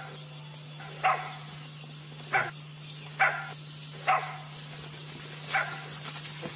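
A dog barking in short single barks, about one a second with uneven gaps, over a steady low hum.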